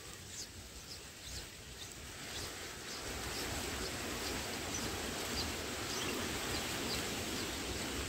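Steady outdoor background hiss that grows a little louder about three seconds in, with faint, short, high-pitched bird chirps scattered through it.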